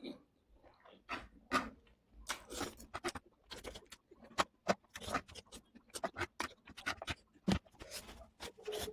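A quick, irregular run of small clicks and crackles, a few louder snaps among them, with no steady sound underneath.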